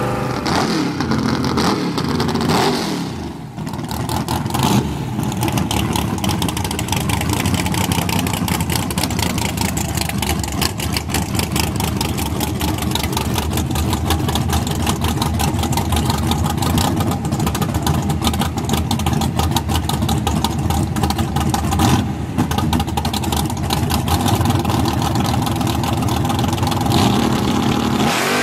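Big-block V8 of a drag-racing Chevrolet S10 pickup idling loudly with a fast, choppy lope, the revs falling away a few times in the first few seconds.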